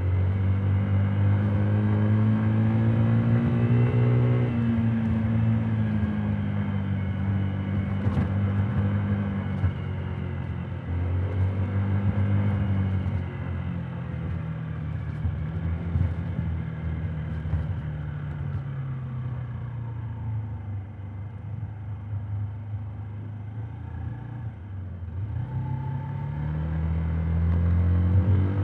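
Honda Today 50cc scooter's four-stroke single-cylinder engine under way, heard muffled from inside the under-seat helmet storage. It revs up over the first few seconds and eases off, picks up again, then sinks slowly to its lowest and quietest about three-quarters through before revving up sharply near the end.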